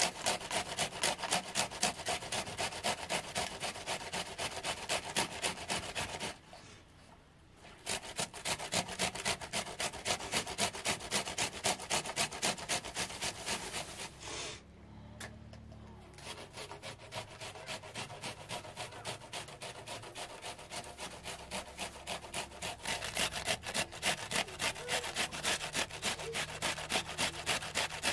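Rapid, rhythmic back-and-forth scraping strokes, about three a second, that stop briefly twice.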